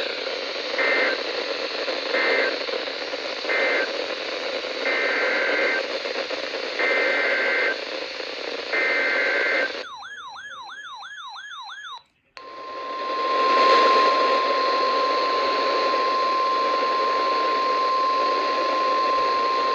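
Weather-radio alert tones over a hiss of radio static. First come three short and then three longer two-pitch data bursts of the EAS SAME code: the end-of-message code, then the header of the next warning. Then a warbling tone sweeps up and down for about two seconds, and after a brief dropout a steady tone near 1 kHz, the NOAA Weather Radio 1050 Hz warning alarm, holds for about eight seconds.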